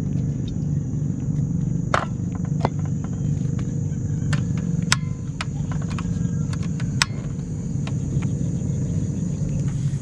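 Outdoor ambience: a steady low rumble and a steady high insect buzz. Over it come several sharp clicks and knocks, the loudest about two, five and seven seconds in, as a collapsible kettle is set on a portable butane camping stove and the stove's knob is worked.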